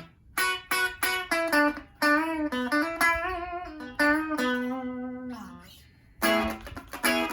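Telecaster-style electric guitar on its bridge pickup, played through a small Blackstar amp at low volume: a few quick chord stabs, then a single-note lick with bends and vibrato ending on a held note that fades away, then fast strummed chords near the end.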